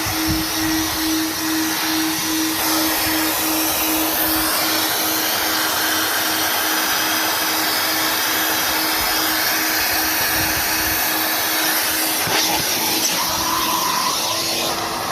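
Kerstar KV25-2 twin-motor commercial vacuum cleaner running steadily, with a continuous rush of suction noise over a faint pulsing hum. The airflow sound shifts a few times as the nozzle is worked.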